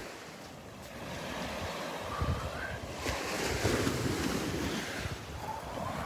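Small, gentle Gulf of Mexico waves breaking and washing up a sandy beach. The wash swells louder about three seconds in as a wave comes ashore.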